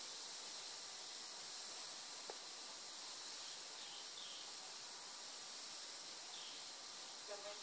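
Faint, steady high hiss of background noise, with a single faint click about two seconds in.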